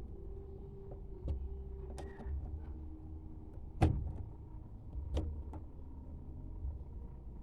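Sharp knocks and clicks of parts and tools being handled during work on a washing machine's water inlet valve: four strikes, the loudest about four seconds in, over a low steady hum.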